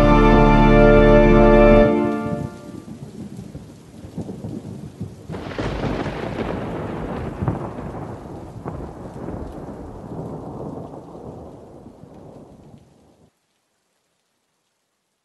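A sustained organ-like synth chord stops abruptly about two seconds in, leaving a thunderstorm recording: rain hiss with a rumble of thunder that swells about five seconds in and slowly dies away. The storm cuts off to silence near the end.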